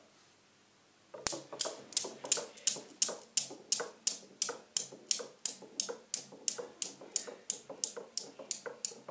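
Newton's cradle's steel balls clacking at an even rhythm of about three clicks a second, starting about a second in when the pulled-back end ball is let go.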